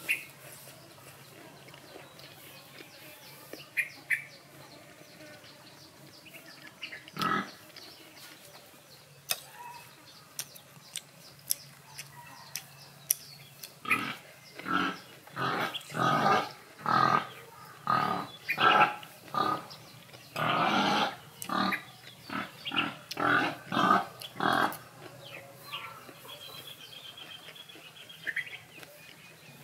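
An animal grunting in a quick run of more than a dozen short calls, starting about halfway through and lasting some ten seconds.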